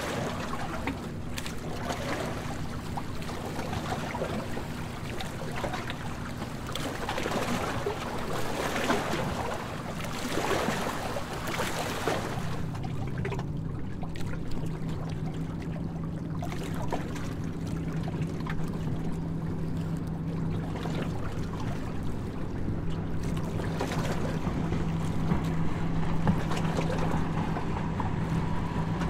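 Harbour tour boat's engine running with a steady low hum, under a wash of water and wind noise. The rushing noise dies down about twelve seconds in, leaving mainly the engine hum.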